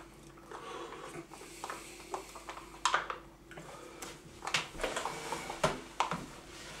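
Scattered clicks and scrapes of a plastic spoon working in plastic sundae cups, with sharper knocks near the end as a wooden chair is moved and someone gets up from the table.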